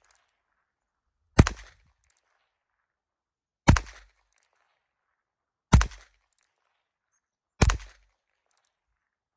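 Four shots from a Heritage Rough Rider .22 LR six-shot single-action revolver, fired at a steady pace about two seconds apart, each a sharp crack with a brief tail.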